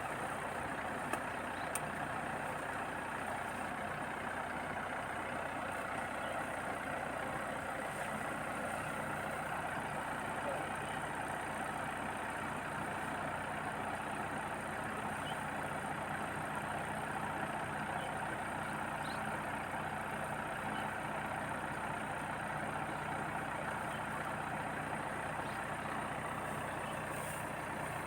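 Rice combine harvester running steadily while harvesting, a constant engine drone.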